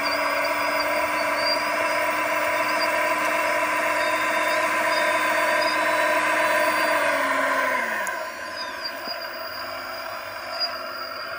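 Drive motors and gearing of a radio-controlled O&K L25 scale wheel loader whining steadily under load as it pushes its bucket into a pile of soil. About eight seconds in, the whine falls in pitch and gets quieter as the drive slows.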